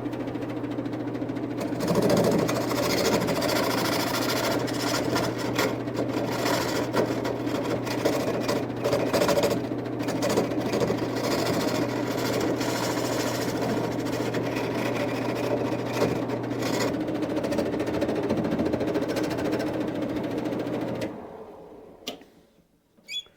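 Wood lathe running, its motor giving a steady hum, while a turning tool cuts down the end of a spinning branch leg, a rough scraping chatter from about two seconds in. The lathe shuts off near the end.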